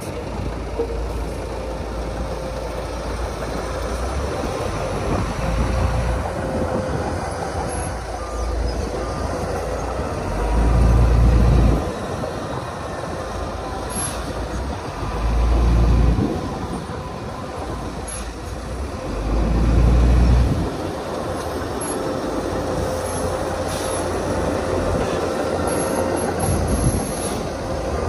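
Bulldozer diesel engines running steadily, with a faint steady whine. Three louder swells of deep rumble come about ten, fifteen and nineteen seconds in.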